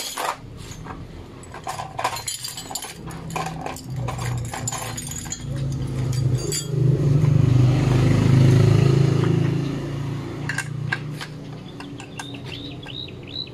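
Light metallic clinks and knocks as a motorcycle's metal license plate and its screws are handled and fitted. A low hum swells up over several seconds and fades again in the middle, and a few short high chirps come near the end.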